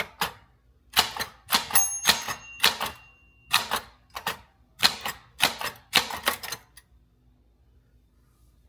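Typewriter keys striking in quick, uneven runs, with a bell ringing once about two seconds in. The typing stops about seven seconds in.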